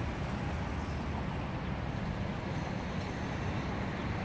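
Steady outdoor background noise: a low rumble with a hiss above it and no clear tones.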